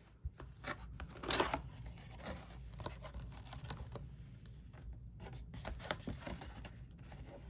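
Packaging of a trading-card booster box being handled: short scrapes and rustles, with a louder crinkle about a second and a half in.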